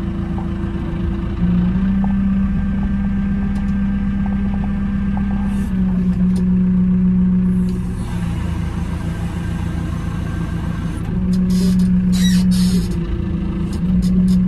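JCB telehandler's diesel engine heard from inside the cab, revved up to drive the hydraulics as the boom lifts a steel beam; the revs rise about a second and a half in, drop back briefly around eight seconds, and rise again near the end. Toward the end, clicks and rustling as clothing brushes close to the microphone.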